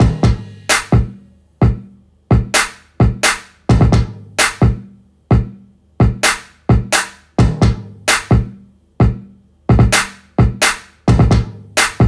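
Programmed R&B drum-machine beat: punchy kick and snare hits at about two a second, each dying away quickly, over a faint low bass tone.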